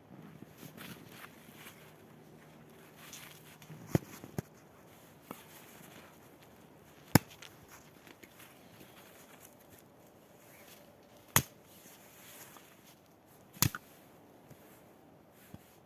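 Sharp, short knocks or cracks, five of them spaced a few seconds apart, over a quiet background.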